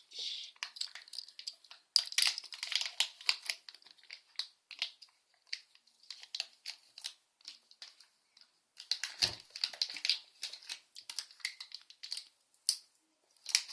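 Thin wrapping being handled and crumpled, giving many short, irregular crinkles with a brief pause about eight seconds in.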